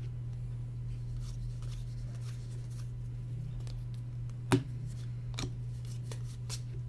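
Hands quietly sliding and flicking through baseball trading cards, faint rustles and light clicks with one sharper tap about four and a half seconds in, over a steady low hum.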